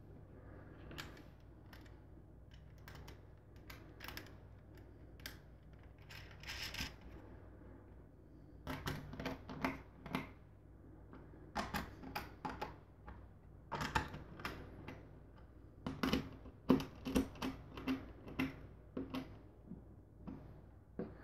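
Sped-up clicks and taps of small parts being handled: screws, nuts and 3D-printed feet being fitted to a plastic utility box, with the clicks coming thick and fast in the second half. A faint steady low hum runs underneath.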